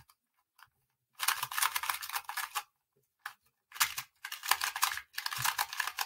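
2x2 Rubik's cube being turned quickly by hand: rapid clicking and clacking of its plastic layers, in about four bursts with short pauses between, the first beginning about a second in.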